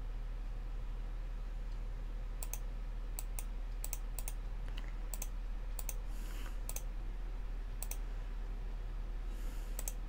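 Scattered single clicks of a computer mouse as menu options are picked, over a steady low electrical hum.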